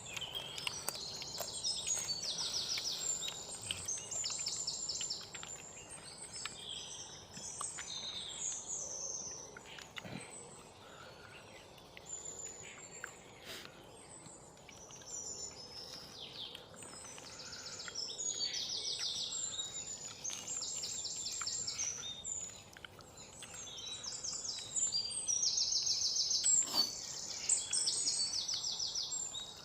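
Wild birds chirping and calling, with quick trilled notes repeated in bouts; the calls thin out for a while in the middle and pick up again toward the end.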